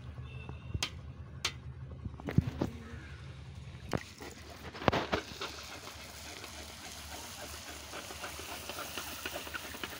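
Hot oil sizzling in an iron kadhai as pani puri shells fry, a steady hiss, with scattered sharp clicks and knocks in the first few seconds.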